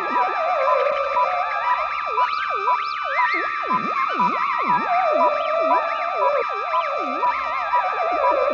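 Synthesized electronic sound effect: wavering, siren-like tones swooping down and back up over steady high drones, with a short beep repeating about twice a second.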